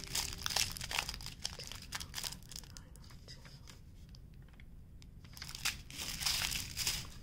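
Small clear plastic bags of diamond painting drills crinkling as they are handled and sorted. The crinkling goes quieter for a couple of seconds in the middle and picks up again near the end.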